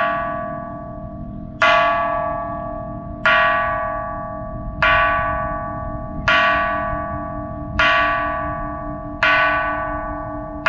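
Large bronze temple bell struck with a stick seven times, about one strike every second and a half. Each stroke rings on and fades, and a low hum carries between the strokes.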